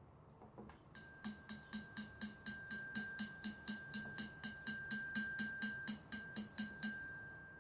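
A small metal bell struck rapidly and evenly, about four strikes a second for some six seconds, imitating a railroad crossing warning bell. The ring hangs on briefly after the last strike.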